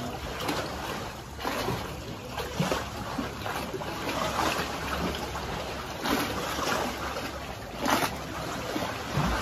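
Boat moving over water: water rushing along the hull and splashing at irregular intervals, over a low steady rumble.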